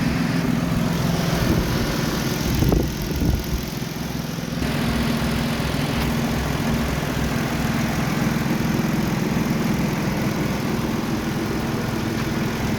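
Kia Cadenza V6 engine running at a steady idle, starting again now that the wiring fault that blew its fuses has been repaired.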